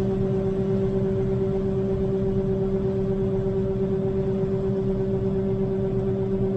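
Combine harvester running steadily: an even machine hum with a constant whine that doesn't change pitch.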